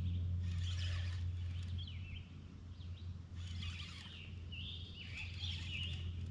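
Wild birds singing and calling in short chirps and trills, over a steady low hum.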